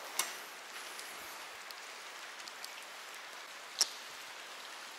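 Steady hiss of light rain falling on surfaces, with a sharp tap nearly four seconds in.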